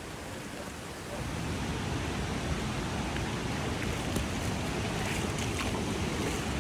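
Flash-flood water rushing: a steady noisy rush that gets louder about a second in, with a few faint ticks near the end.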